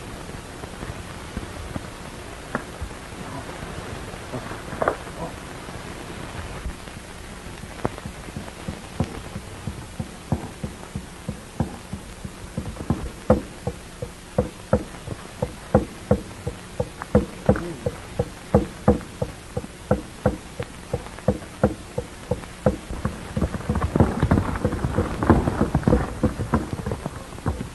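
Hoofbeats of a horse, about two to three a second, growing louder and denser near the end as it comes in, over a steady hiss from an old film soundtrack.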